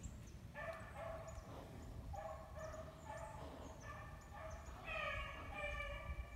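Rabbit-hunting dogs baying faintly in the distance: a string of drawn-out bays, a little louder about five seconds in, the sound of the dogs running a rabbit's trail.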